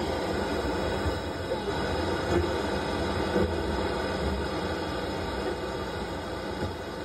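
The original factory AM/FM radio of a 1972 Corvette Stingray playing through its old speakers as it is tuned, giving a steady, really staticky noise. Some of the speakers may be out, and the owner means to check the antenna for the static.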